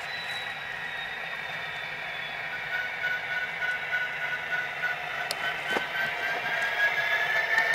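Model SD70ACe diesel locomotive running, its Tsunami sound decoder playing diesel engine sound through the model's small speaker, with a whine that rises in pitch near the end.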